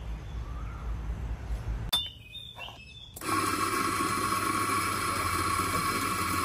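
Outdoor rumble, then a couple of light clinks. From about three seconds in, an espresso grinder's motor starts and runs steadily with a high whine, grinding coffee beans.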